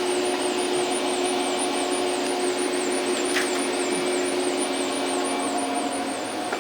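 Steady machinery noise of a welding workshop: a constant rush with a low hum under it and a faint high warble repeating a few times a second.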